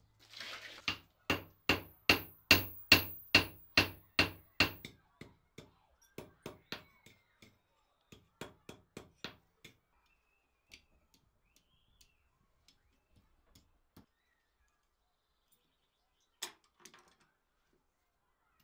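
Hand hammer striking red-hot iron on an anvil. About ten heavy blows, two to three a second, ring brightly off the anvil over the first five seconds. Lighter, slower taps follow and thin out, and a single sharp blow comes near the end.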